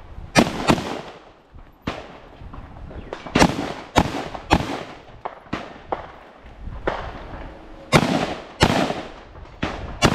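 Semi-automatic AR-style rifle fired in an uneven string of about a dozen shots, several in quick pairs about half a second apart, each followed by a short echo.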